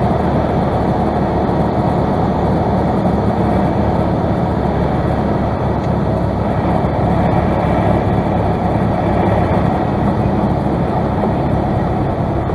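Single-engine light airplane's piston engine and propeller running steadily, with airflow noise, heard from inside the cockpit as a constant drone.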